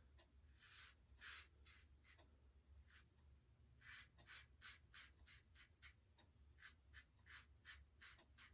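Rockwell 6S double-edge safety razor cutting through coarse beard stubble on an across-the-grain pass, a run of short, faint scratchy strokes, coming about three a second in the second half. The scratching is the blade's feedback from coarse facial hair.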